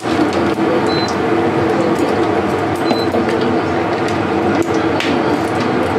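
Whole spices (cumin seeds, dried red chillies, bay leaf and whole garam masala) sizzling and crackling in hot oil in a kadai, over a steady hum. Two brief high-pitched tones sound about two seconds apart.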